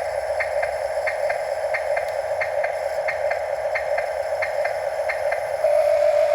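Small electric motor and gearbox of a radio-controlled model construction machine whining steadily, with a pair of light clicks about every two-thirds of a second. Near the end the clicking stops and the whine turns louder and steadier.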